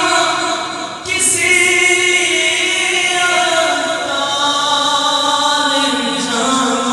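A man sings a naat, Urdu devotional poetry in praise of the Prophet, unaccompanied and amplified through a PA. He holds long, drawn-out notes, and a new phrase starts about a second in and slides slowly downward.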